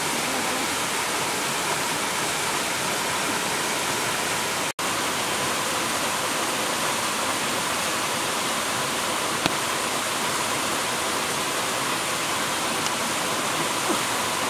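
Steady rushing of a rocky river or stream, an even unbroken wash of water noise, with a few faint clicks; the sound cuts out for an instant about five seconds in.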